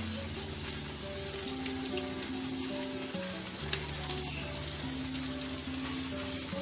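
Onion, capsicum and sauce gravy sizzling in a frying pan, with scattered crackles, as fried battered prawns are dropped in one by one. Background music with sustained low notes plays underneath.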